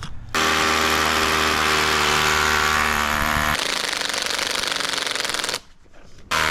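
An engine-driven machine running with a rapid hammering rattle. It starts abruptly, turns rougher a little past halfway, and cuts off about a second before the end.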